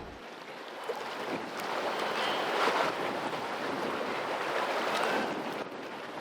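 Harbour water washing and lapping, swelling up and falling back twice.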